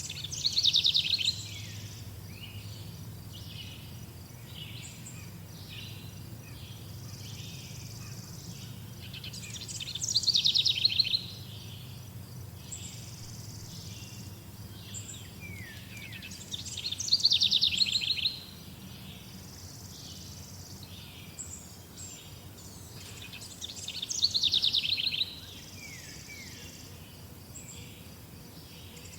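Songbirds chirping, with one bird repeatedly singing a loud, fast trill that drops in pitch and lasts about a second and a half, four times at intervals of about seven seconds. Softer chirps fill the gaps over a low steady hum.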